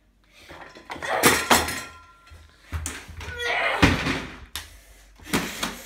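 An office chair being shoved about and knocked over onto a carpeted floor: a series of thuds and knocks, the heaviest about four seconds in.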